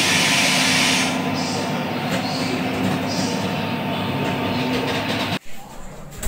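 Diesel generator set in a train's luggage, brake and generator car running with a steady mechanical drone and a steady hum. A high hiss over it stops about a second in, and the drone cuts off abruptly a little over five seconds in.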